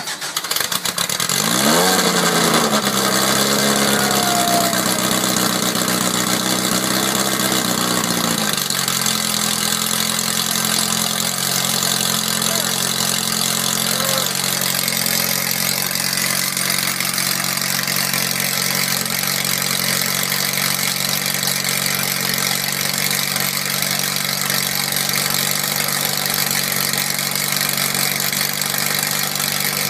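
Freshly rebuilt air-cooled Volkswagen flat-four race engine on its first run. It catches and revs up about a second in, runs at a fast idle, then drops to a lower, steady idle after about eight seconds.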